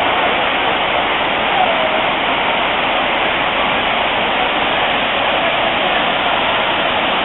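Dunn's River Falls, a terraced limestone waterfall, rushing steadily as water cascades over its rock steps.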